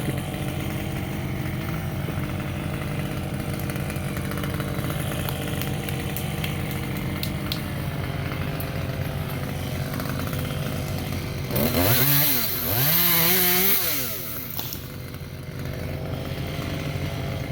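Chainsaw idling steadily, then revved up twice about 12 seconds in, pitch rising and falling, before settling back to idle.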